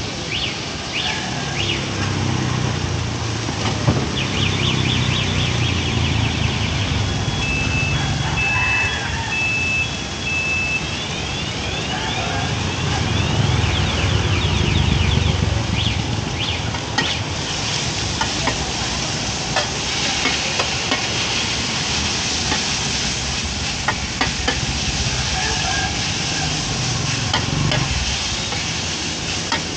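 Busy street-market ambience: food hissing as it fries, louder in the second half, over a low rumble of passing traffic, with scattered clinks and a short run of high beeps about a quarter of the way in.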